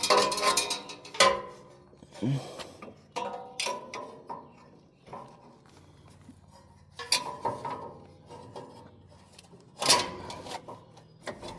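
Metal parts of a hay baler clanking and rattling as they are handled and worked into place by hand, with several sharp knocks, the loudest about ten seconds in.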